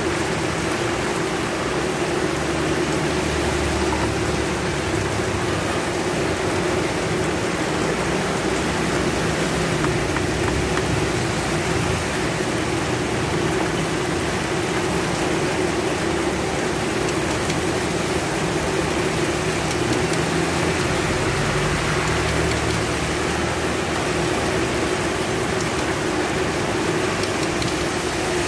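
Steady rain falling, with a low steady hum underneath.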